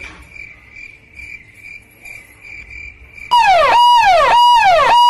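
Cricket chirping, about three regular chirps a second. About three seconds in, a much louder electronic tone takes over, repeatedly holding and then falling in pitch, four times in about two seconds.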